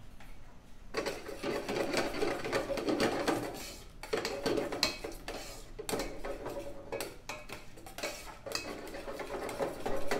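Metal spoon stirring and scraping around the inside of a stainless steel pot of thin mushroom cream gravy, in quick repeated strokes that start about a second in, with brief lulls.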